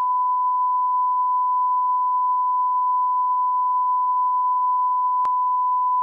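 Steady 1 kHz line-up test tone, the single unbroken pitch that is played with broadcast colour bars, with a faint click about five seconds in.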